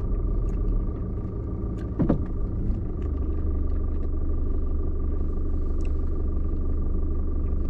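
Car engine idling, heard from inside the cabin while the car waits at traffic lights: a steady low rumble that grows stronger about three seconds in, with a thin steady whine over it. A short falling sound comes about two seconds in.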